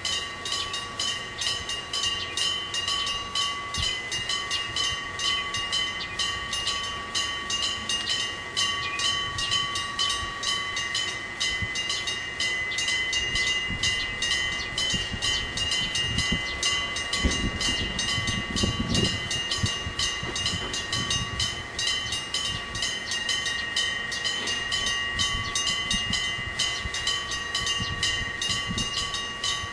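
Mechanical electric bell of a Japanese level crossing ringing continuously while the crossing is active, its hammer striking the gong several times a second with a steady ring under the strikes. A low rumble passes about halfway through.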